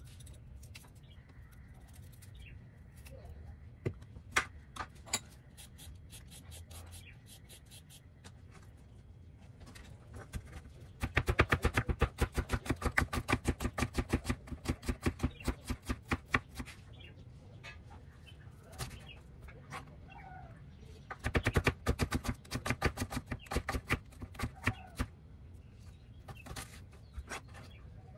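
Kitchen knife slicing a small red onion on a wooden chopping board: two runs of quick, even knocks of the blade on the board, with scattered single taps between them.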